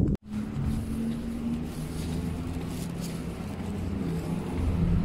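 After a brief cut near the start, a motor vehicle engine runs steadily close by, a low even hum over street noise.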